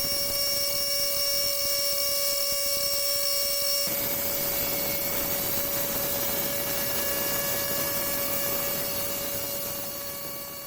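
A woodworking machine running with a steady whine over a hiss of cutting noise; about four seconds in the sound changes, the hiss growing fuller, and it fades out near the end.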